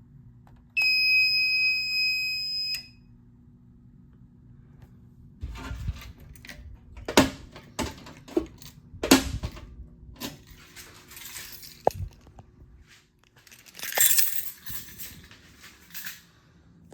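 High-pitched electronic alarm tone from a fire alarm system's piezo beeper, held steady for about two seconds and then cut off. A few seconds later comes a run of sharp clicks and knocks, two of them loud, then a short rattle near the end.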